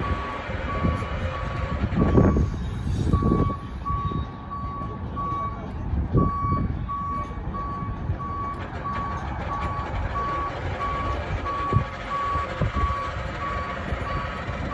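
A vehicle's reversing alarm beeping at one steady pitch, about two beeps a second, with a short break about two seconds in, over a low rumble of city traffic.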